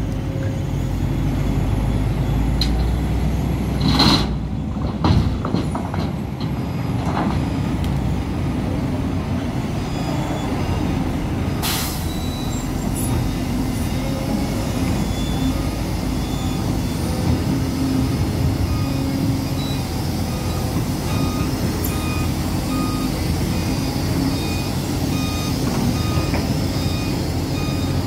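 Hidromek HMK 500LC excavator's diesel engine running steadily as it digs rock. Two loud knocks of rock come about four and five seconds in, and a short sharp hiss about twelve seconds in. Through the second half a warning alarm beeps at a steady pace.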